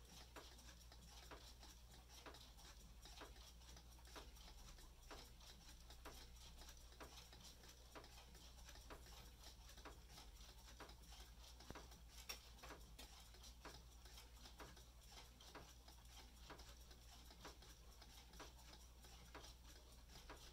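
Faint, steady ticking of a wall clock, about two ticks a second, over a low hum, with one slightly louder click about twelve seconds in.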